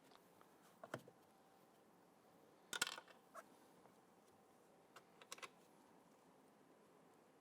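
Scattered light clicks and taps from handling the plastic interior door handle assembly as it is fitted into the door, the loudest a quick cluster of clicks about three seconds in.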